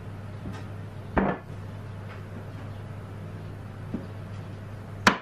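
Wooden knocks as a glued spindle is set into a drilled cot rail: one dull knock about a second in, a faint tick, and a sharp knock near the end, over a steady low hum.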